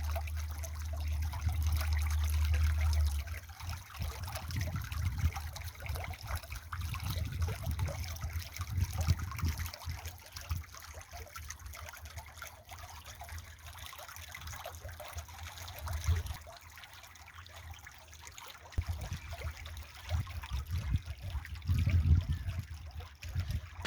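Water trickling and dribbling, with many small splashes over a low rumble that is strongest in the first few seconds.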